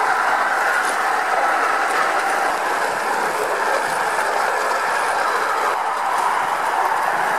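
Small wheels of a handmade rail trolley rolling along steel train tracks: a steady metallic rolling noise that holds even throughout.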